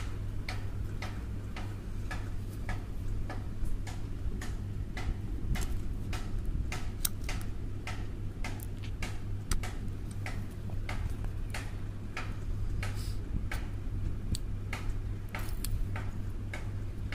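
Small, irregular clicks and ticks, several a second, from the plastic casing of a car charger being handled and pried apart, over a steady low hum.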